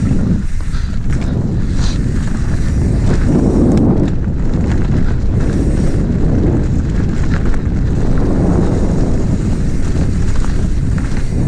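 Wind buffeting an action camera's microphone during a fast mountain-bike downhill run, over the rumble of knobby tyres rolling on a leafy dirt trail, with a few light knocks from the bike.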